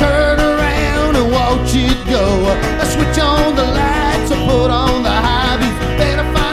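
Country-style music with guitar playing continuously.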